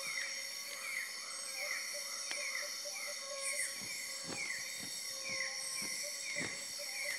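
Tropical rainforest insects droning steadily in several high, unbroken tones, with a short descending chirp repeated roughly every two-thirds of a second. In the second half comes a run of soft low thumps about half a second apart.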